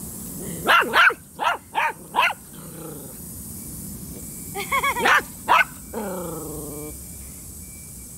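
Golden retriever puppy barking in short, sharp yaps: five quick barks in the first two seconds, three more around five seconds in, then one longer drawn-out bark that falls slightly in pitch.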